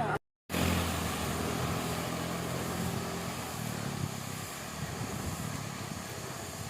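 A motor vehicle's engine hum over steady wind and road noise, heard from a moving bicycle; the engine fades away after about four seconds. A brief cut to silence comes just after the start.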